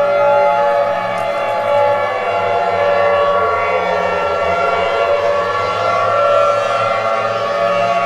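Civil defense warning siren sounding steadily as a chord of several tones. One pitch slowly dips and climbs back up around the middle.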